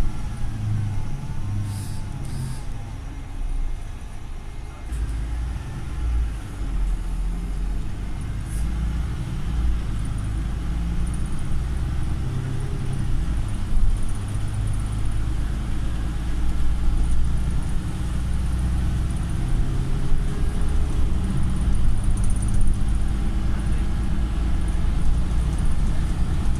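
Cabin noise inside a moving Volvo diesel bus: a low engine and road rumble, with an engine drone that slowly rises and falls in pitch, a few light knocks and rattles, and a faint steady high whine.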